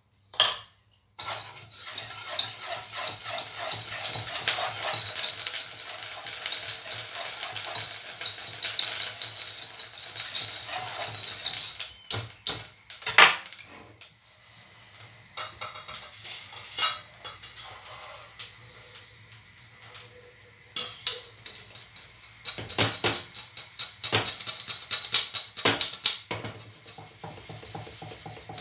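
Salt heating in a saucepan, stirred and scraped with a wooden spoon: a dense, gritty scraping rattle, with a few sharp knocks about 12 to 13 seconds in. This is the salt being heated in the saucepan for puffing rice into muri.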